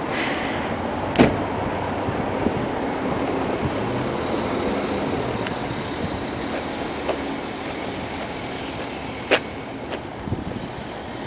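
Minivan engine running as the van creeps forward, under a steady outdoor rush. A car door shuts with a sharp knock about a second in, and another sharp knock comes near the end.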